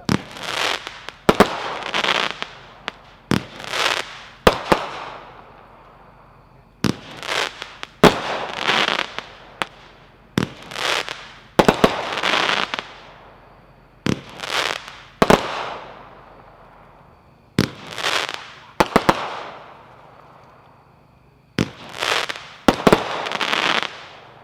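A 21-shot consumer firework cake, Super Fireworks' Trumptastic, firing in bursts. Sharp reports come in quick groups, each group followed by about a second of hissing, with lulls of a second or two between groups.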